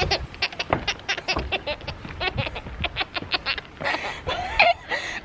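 A baby giggling in a quick run of short, breathy bursts, about five a second.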